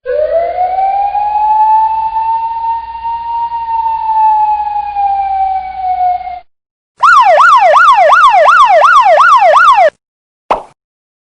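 Siren sound effects: first one long wail that rises over the first second or so, holds, then slowly falls; after a short break, a fast electronic yelp siren sweeping up and down about three times a second for roughly three seconds. A very brief sound follows near the end.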